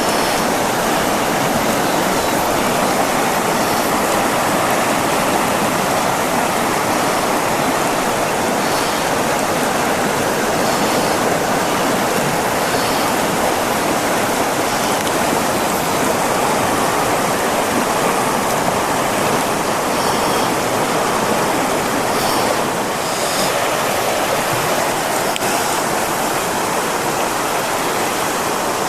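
Backcountry river water rushing steadily over rocks, close by: a constant, even rush with no breaks.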